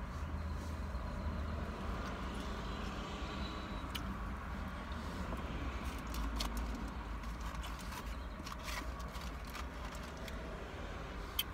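Steady low hum of a car cabin with the engine running. From about four seconds in come scattered sharp clicks as a foam takeout clamshell container is handled and opened.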